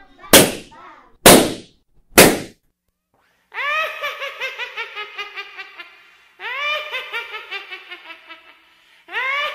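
Three loud bangs about a second apart, then a pause, then a pitched comic sound effect in phrases that each swoop upward and then stutter rapidly, like a cackling brass tone.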